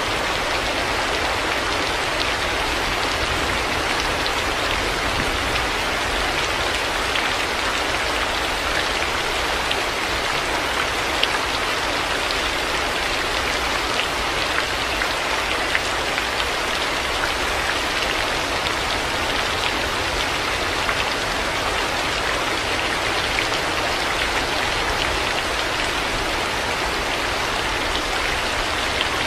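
Heavy rain falling steadily, a dense, even hiss with scattered sharper drop ticks.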